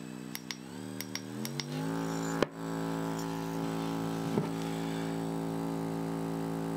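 RecoverFun MINI massage gun running and stepped up through its speeds, its hum rising in pitch at each step with small clicks, then holding steady at top speed. It is really quiet, under 60 dB at its highest setting. One sharp click comes about two and a half seconds in.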